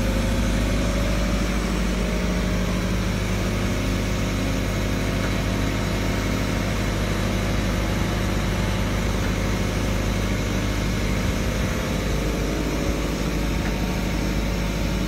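Diesel engine of the lifting crane running steadily, an even hum that does not change.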